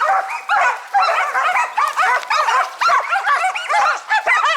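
Several Karelian-Finnish laikas barking rapidly and without pause, their barks overlapping: the pack is baying at a marten up in a pine tree.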